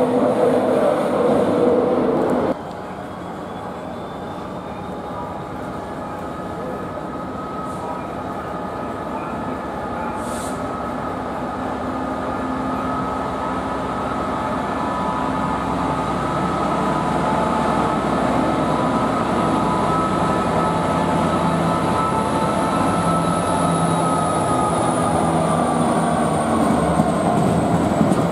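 A GBRf Class 66 diesel locomotive's two-stroke V12 engine grows steadily louder as it approaches hauling loaded coal hoppers, with a thin high whine over the engine note. Its tone drops as it passes near the end. For the first two and a half seconds a different passing express train is heard, cut off abruptly.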